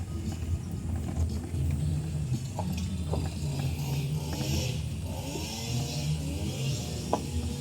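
A low, uneven rumble with faint voices in the background.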